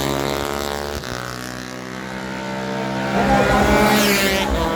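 Motocross motorcycle engines racing, their pitch rising and falling as the riders work the throttle. The sound fades a little, then a bike comes close and passes near the end.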